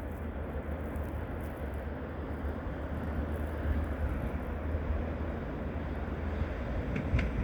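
Steady low rumble of distant engine noise, slowly growing louder.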